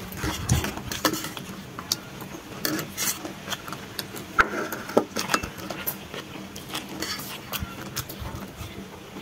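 Forks clinking and scraping against steel plates, with noodles being slurped and chewed; sharp irregular clicks throughout, one brief ringing clink about four and a half seconds in.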